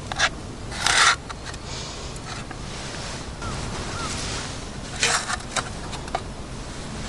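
Handling noises: a few short, sharp scrapes and rustles, the loudest about a second in and another cluster around five seconds in, over a steady outdoor hiss.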